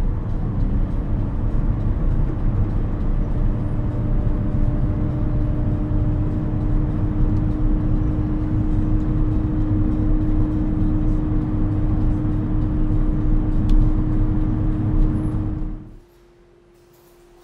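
A road vehicle running at a steady speed: a constant low rumble with a steady hum. It cuts off abruptly about a second before the end, leaving a faint hum.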